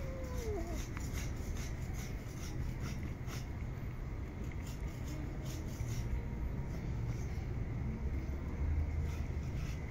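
A cat chewing raw meat, faint irregular wet clicks of its teeth, over a steady low rumble. A brief falling whine comes right at the start.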